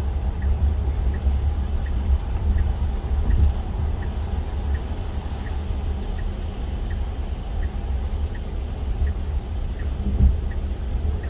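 Steady low road rumble heard inside a Tesla Model 3's cabin on a wet road. Over it, the turn-signal indicator ticks evenly, about twice a second, while the car works a lane change.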